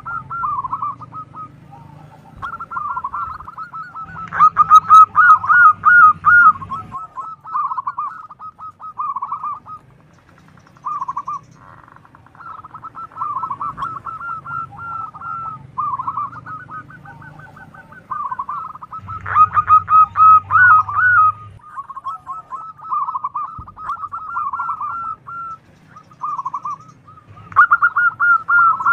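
Zebra doves (perkutut) cooing in repeated rapid, trilling phrases. The calls are loudest about four to seven seconds in, around twenty seconds in, and again near the end.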